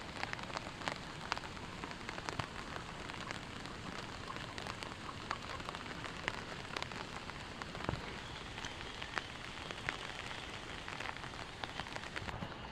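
Steady rain, with many scattered drops ticking sharply.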